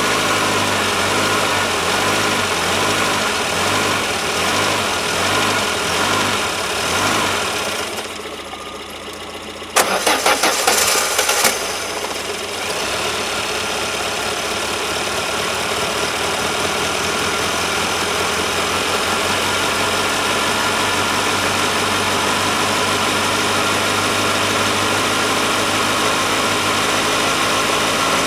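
Peugeot 205's 1.4-litre TU3 single-point-injection petrol engine cold-starting in deep frost on jump leads. It turns over unevenly at first, drops away about eight seconds in, fires in a loud ragged burst around ten seconds, then settles into a steady idle.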